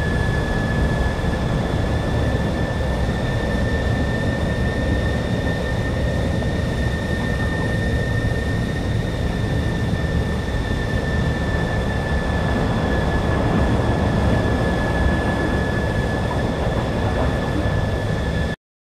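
A loud, steady rush of blowing air with a constant high whine over it and a deep rumble beneath, like a jet engine blast. It cuts off abruptly near the end.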